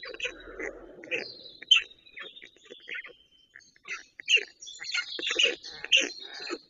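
Birds chirping and twittering: many short, irregular calls, busier in the second half, with a thin high whistled note running through the first couple of seconds.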